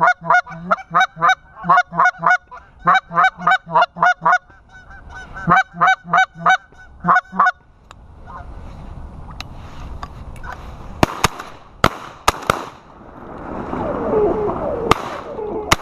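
Goose call blown in rapid, evenly spaced honking notes, about four a second, in two runs with a short break, stopping about seven and a half seconds in. A few sharp clicks follow near the end.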